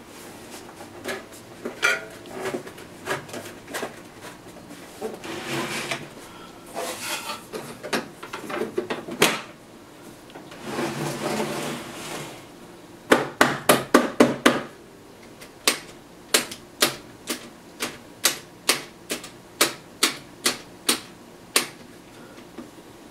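Plastic handling noises and rustling from a portable TV set, then a quick run of loud clicks and a steady series of sharp plastic switch clicks, about two a second, as its front controls are worked. The set gives out no sound of its own; it is not working.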